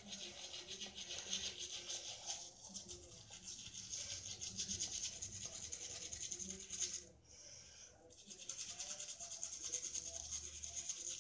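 Toothbrush scrubbing teeth in fast back-and-forth strokes, pausing briefly about seven seconds in before scrubbing again.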